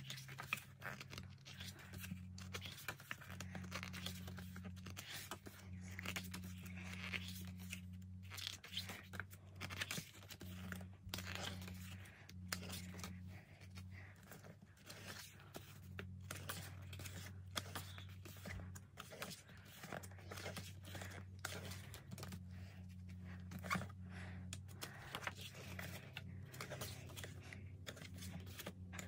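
Pages of a glossy K-pop album photo book being turned by hand one after another, each turn a short paper rustle.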